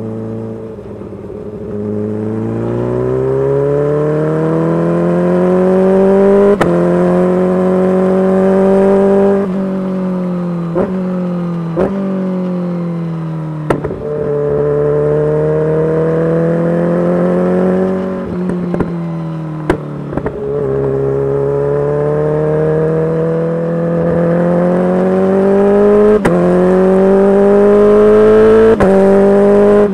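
Kawasaki Ninja H2's supercharged inline-four, breathing through a full titanium exhaust, pulling hard under acceleration with its pitch climbing steadily. Quick gear changes break the climb with short sharp clicks. Around the middle the revs fall away through a few quick blips and drops, then the engine climbs again toward the end.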